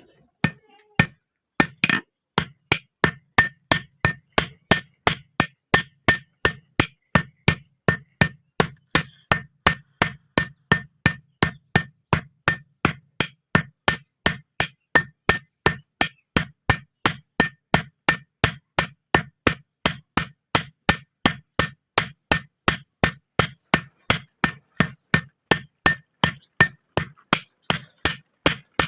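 Blacksmith's hand hammer beating an iron rod on an anvil in a steady, even run of blows, about three a second.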